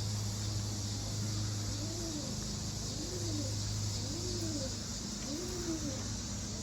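Racing pigeon cooing: a repeated low coo that rises and falls, about once a second, starting about two seconds in.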